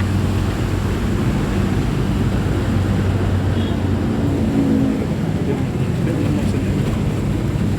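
Commuter train running, heard from inside the carriage: a steady low rumble with a constant hum.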